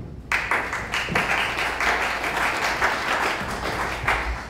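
Audience applauding, starting suddenly and dying away after about four seconds.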